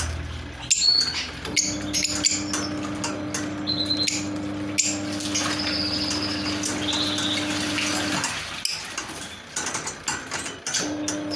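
Lovebirds chirping in many short, high-pitched calls, with sharp clicks and taps, over a steady low hum that stops about eight seconds in.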